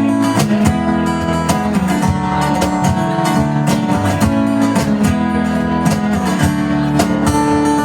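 Live rock band playing an instrumental passage between sung verses, with strummed acoustic guitar to the fore and a steady beat.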